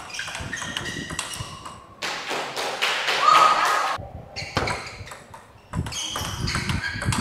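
Table tennis rally: the plastic ball clicking off the rackets and the table in quick, irregular strikes.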